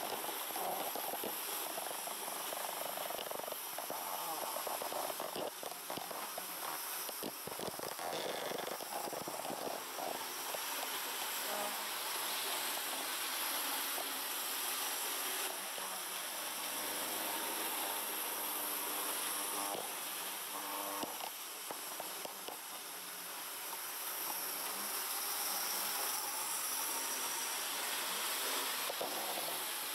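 Hornby OO gauge Class 37 model locomotive running with four coaches around the layout: a steady purring motor whirr with scattered clicks.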